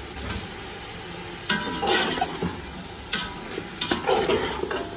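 Slotted metal spoon scraping and clinking against a metal pot as sliced raw potatoes are stirred into minced meat frying in oil, over a steady sizzle. The scrapes come as a handful of sharp strokes from about a second and a half in.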